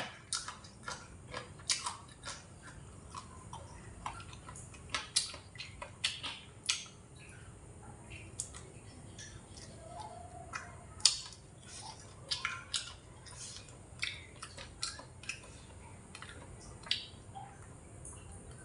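A person biting and chewing fried satay pork spare ribs with the mouth close to the microphone: irregular sharp clicks and smacks, the loudest about eleven seconds in.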